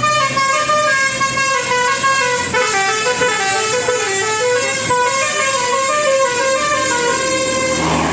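Bus telolet horn, a multi-tone bus horn playing a melody of notes that step up and down in pitch. It cuts off suddenly near the end.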